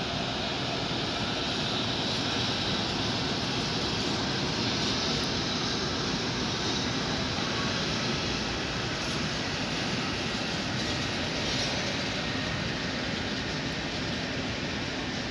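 Freight train of tank wagons rolling steadily past, a continuous rumble of wheels on rail.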